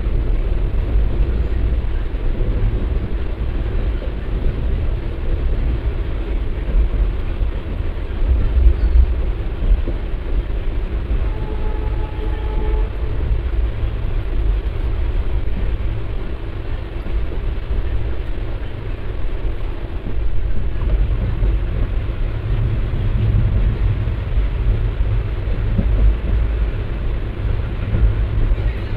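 Moving passenger train heard from inside the coach: a steady low rumble of wheels and running gear on the track, with a faint short tone about twelve seconds in.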